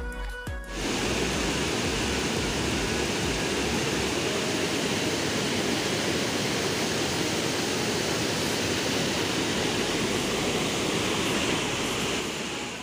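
Waterfall pouring over rocks, a steady rush of falling and cascading water. Background music cuts off within the first second, and the rush drops slightly in level near the end.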